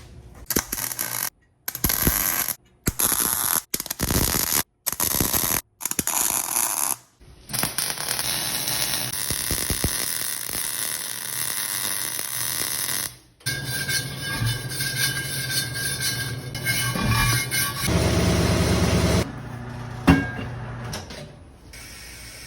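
Shop tools working on a damaged race wheel, in a string of short cuts: harsh noisy tool sounds that stop abruptly every second or so at first, then longer stretches. About halfway through a steady motor hum with a tone comes in, and a single sharp knock sounds near the end.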